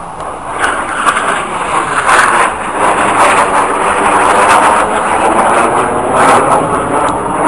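A pair of display jets flying in close formation, their engines making a loud, steady jet roar. The roar builds over the first couple of seconds, then stays loud with a slowly sweeping whoosh as they pass.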